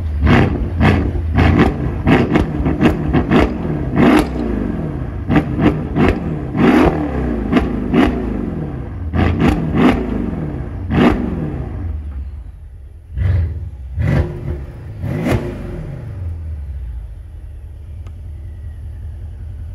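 Mercedes-AMG S63 (W222) 5.5-litre twin-turbo V8 revved in quick repeated blips, each one falling straight back. The exhaust has its Guerrilla bypass valves open and the mid mufflers deleted. After about eleven seconds the blips thin out to three more, then the engine settles to a quieter idle with the bypass valves closed.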